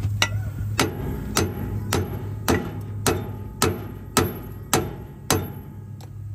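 Hammer blows on the steel axle end of a truck: about ten sharp, ringing strikes at a steady two a second, with a lighter knock near the end, driving loose a wheel bearing stuck by a seal that is thought to have melted on. A steady low engine hum runs underneath.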